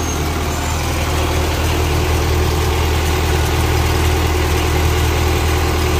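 Kubota DC-105X combine harvester's diesel engine idling steadily, a loud, even low drone.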